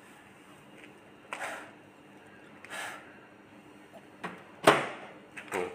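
Handling noises: two soft brushing sounds, then a few clicks and knocks, the loudest a sharp clack near the end, as of a microwave oven door being shut on a container of water.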